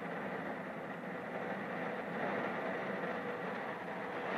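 Heavy rain pouring in a storm, a steady rushing hiss that swells slightly as the wind gusts.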